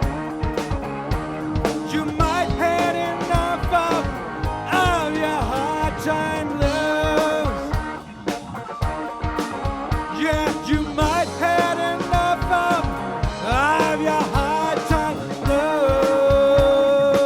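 Blues band playing live: an instrumental passage with a lead line of bent, sliding notes over drums, ending on a long held note.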